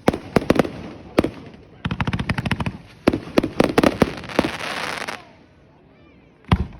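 Fireworks going off in rapid volleys of sharp cracks, the last volley trailing into a crackling fizz about five seconds in. After a short lull comes one more loud bang near the end.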